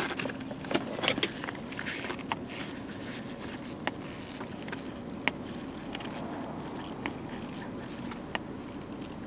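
Steady vehicle engine hum with scattered light clicks and taps, a cluster of louder clicks about a second in.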